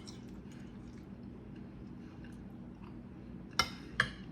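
Quiet chewing of a mouthful of lasagna over a faint steady low hum, with two short, sharp mouth or fork sounds near the end.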